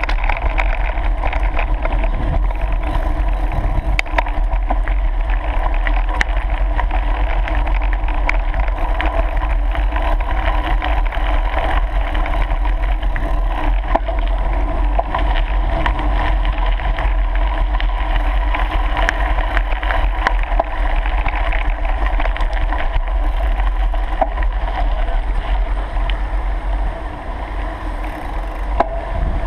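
Steady riding noise from a mountain bike on a gravel track: wind buffeting the microphone under tyres crunching over gravel, with many small clicks and rattles. It eases off a little near the end as the bike rolls onto smooth pavement.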